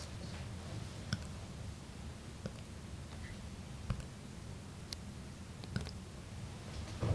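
A bulldog puppy hiccupping: short, sharp hiccups repeating about once every second or so, six in a row.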